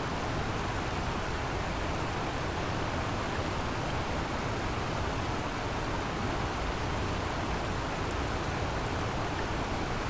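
Steady rush of the Kamo River's flowing water, an even, unbroken hiss over a low rumble.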